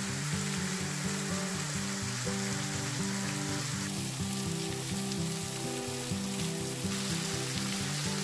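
Steady hiss of water falling and splashing from a partly frozen waterfall off a sandstone overhang, mixed under soft instrumental background music. The splashing hiss shifts about four seconds in and again near seven seconds.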